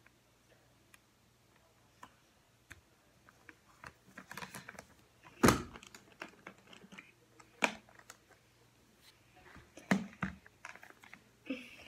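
Handling sounds of a plastic baby doll being dried with a cloth: a run of light clicks, taps and rustles, with a sharper knock about five and a half seconds in.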